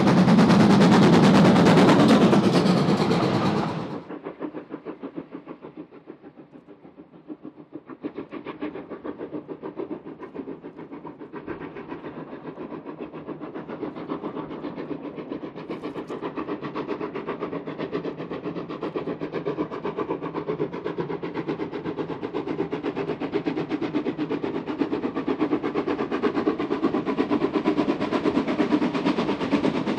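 Steam locomotive working on a heritage railway: very loud close-up for the first few seconds, then cutting off abruptly about four seconds in to rapid, even exhaust beats that grow steadily louder.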